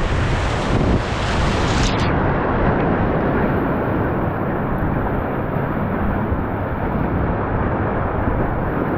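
Whitewater rapids rushing steadily, with wind buffeting the microphone. About two seconds in, the sound turns duller as its hiss above the main rush drops away suddenly.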